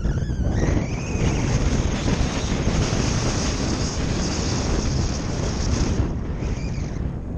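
Wind buffeting a helmet-mounted camera's microphone as a mountain bike rolls fast over a dry grass track, a loud steady rumble with a high hiss that eases about six seconds in.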